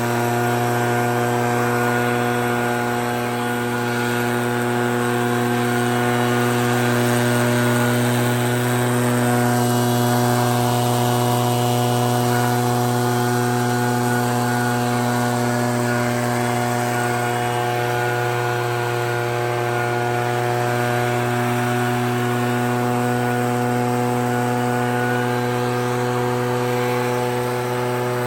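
Echo PB-9010 backpack leaf blower's two-stroke engine running steadily at one constant pitch while blowing snow.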